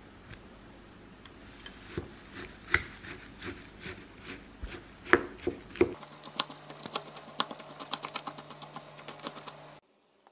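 Light clicks and knocks of small hard food pieces going into a ceramic bowl, then a quick dense patter as dry cereal flakes are poured in; the patter cuts off suddenly shortly before the end.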